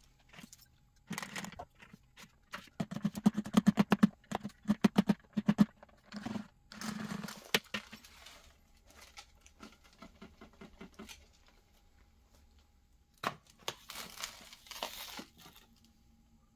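Pleated vacuum filter being knocked in quick runs of sharp taps to shake the dust out. Near the end there is a plastic click, then the dry rustle of dust and lint pouring from vacuum dust cups into a cardboard box.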